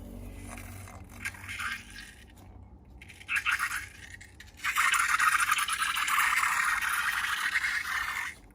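Close-up slime-making handling sounds: a few short scraping and crackling strokes, then from about five seconds in a dense, steady crackle.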